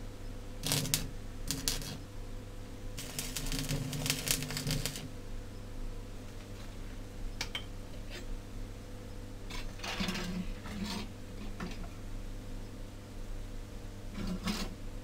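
Steel rods clinking and scraping against a steel worktable as they are handled, a few separate knocks and a longer rattling scrape a few seconds in, over a steady low hum.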